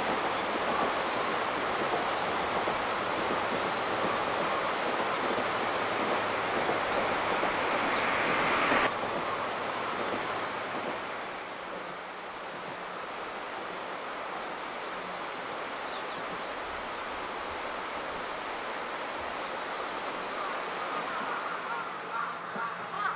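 Shallow river rapids rushing over stones: a steady rush of water that drops abruptly to a quieter rush about nine seconds in. A few brief, faint high bird chirps come through the quieter part.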